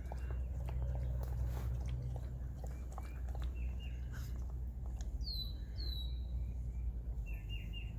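English Labrador retriever lapping river water in small irregular clicks, while birds call with short chirps and two falling whistled notes about five seconds in.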